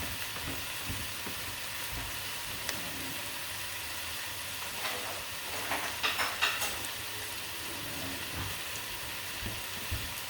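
Shredded chicken with onions and garlic sizzling in oil in a pot, a steady frying hiss. A few sharp clicks and clinks come about five to six and a half seconds in.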